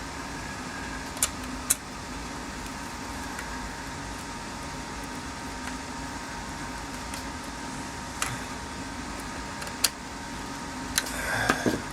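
A few sharp, sparse clicks and taps of small parts being handled while working on a steering column, over a steady background hum.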